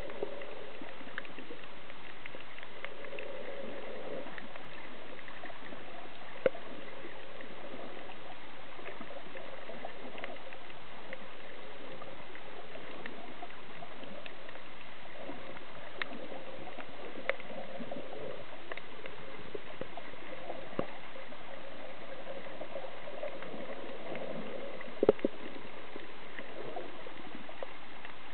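Muffled underwater ambience picked up by a camera held below the surface while snorkeling: a steady hiss with low gurgling swirls, and scattered sharp clicks every few seconds, the loudest a double click near the end.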